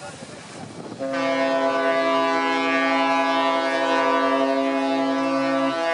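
A ship's horn sounds one long, steady blast, starting suddenly about a second in and lasting nearly five seconds, over wind and surf noise.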